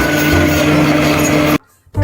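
Loud, steady, noisy vehicle engine sound with a held tone over a shifting low rumble, cutting off abruptly about one and a half seconds in.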